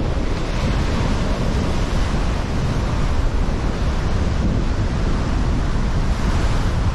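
Rough sea with waves breaking and washing on the shore in a strong wind, the wind buffeting the microphone with a heavy low rumble.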